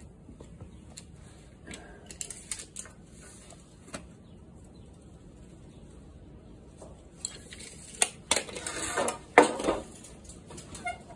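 Scattered clicks and clatter from a tape measure and a 2x4 board being handled at a miter saw, the board scraping and knocking as it is slid along the saw table; the handling noises come thickest from about seven to ten seconds in. The saw itself is not running.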